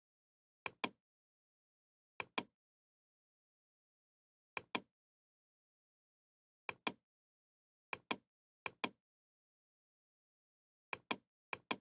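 Computer mouse button clicking: eight short double clicks, each a quick press and release, spaced irregularly one to two seconds apart, with nothing heard between them.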